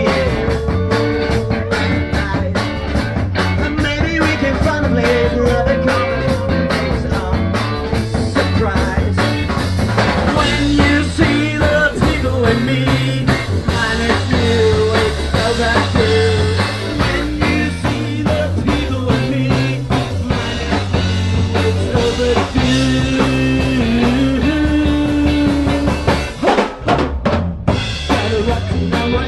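Live garage beat band playing, driven by a drum kit with electric guitars and bass; the band drops out briefly for a beat near the end.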